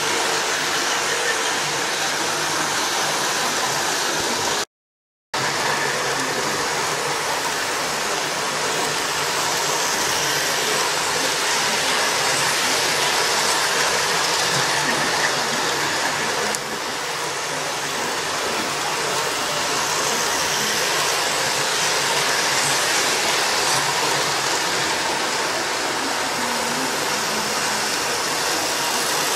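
Model trains, an Intercity 125 among them, running round the track loops: a steady whirring rumble of their motors and wheels on the rails, cutting out for a moment about five seconds in.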